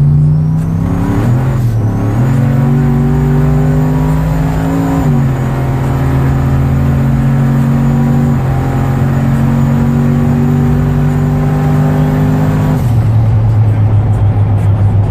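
Turbocharged Chevrolet Avalanche V8 pulling hard under boost at wide-open throttle. The engine note climbs slowly, drops at gear changes about a second and about five seconds in, and falls to a lower, steady note near the end.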